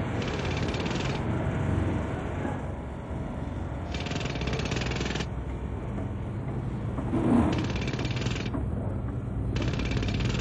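Pile hammer driving steel sheet piles: bursts of rapid mechanical hammering, each about a second long and four in all, over a steady low machine rumble.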